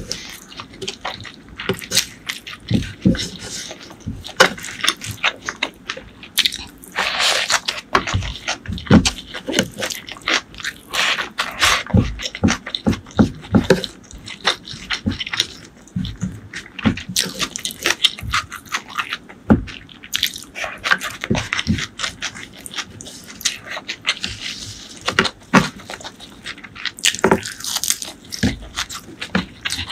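Close-miked eating with the hands: crunching and wet chewing of crispy fried strands, rice and curry, with lip smacks and mouth clicks and the fingers picking food from a wooden board. Near the end, fresh coriander leaves are bitten.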